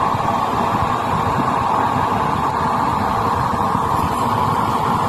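Improvised waste-oil stove running: a blower forces air through the burner's drilled pipe into the flame, making a steady rushing noise.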